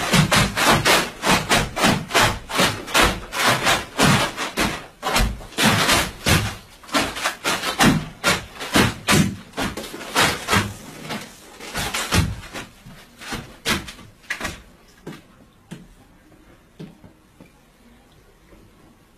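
Rapid rhythmic scuffing and thumping, several strokes a second, of feet stamping and shuffling on a plastic tarp. It thins out and dies away about fifteen seconds in.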